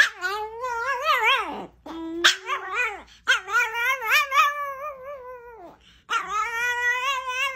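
Small white Chihuahua howling in several long, wavering cries, each rising and falling in pitch, with short breaks between them.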